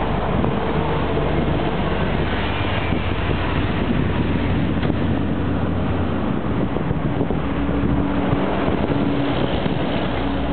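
Steady wind noise on the microphone over a low, even engine drone from diesel locomotives approaching in the distance.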